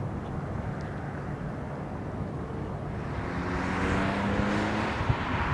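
A car engine revving up, its pitch rising from about three seconds in and growing louder, over a steady low rumble.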